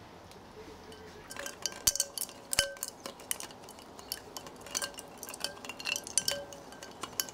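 Ice cubes clinking against a stemmed wine glass of Hugo, a string of irregular short clinks with brief glassy ringing that start about a second and a half in.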